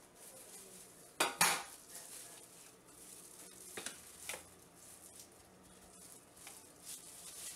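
A fork clinking against a stainless steel mixing bowl a few times, the loudest pair of clinks just over a second in and more around four seconds in, while seasoning is worked into a raw chicken.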